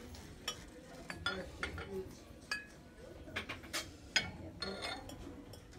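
Ceramic mugs clinking against one another and their metal display pegs as they are handled: a scattered series of short, sharp, ringing clinks, about nine in all.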